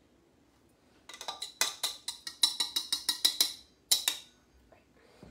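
A small glass cup being tapped in a quick series of sharp, ringing clicks, about six a second for a couple of seconds, with one last louder knock, as it is shaken out to release the last of a crumb topping. The taps start about a second in.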